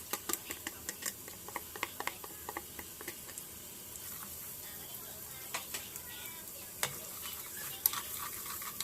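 Chopped shallots and garlic sizzling in hot oil in a pan, with many sharp crackling pops that are thickest in the first few seconds and thin out after.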